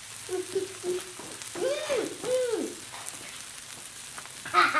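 Salmon sizzling on a Blackstone flat-top griddle, a low steady frying hiss. About two seconds in come two short wordless voice sounds, each rising then falling in pitch, and a brief voice sound follows near the end.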